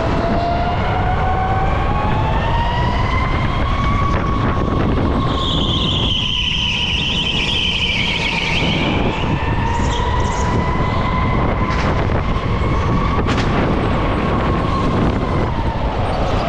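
Electric go-kart's motor whining as it drives a lap, its pitch rising as it accelerates over the first few seconds, then dipping and rising again with speed through the corners, over a steady rumble of wheels and wind. A harsh high squeal joins for about three seconds midway, and a couple of sharp knocks come later.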